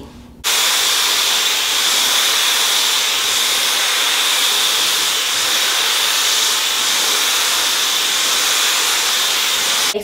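Dyson Supersonic hair dryer with its comb attachment, switched on about half a second in and blowing steadily through a section of wet hair: a loud, even rush of air with a steady high-pitched whine.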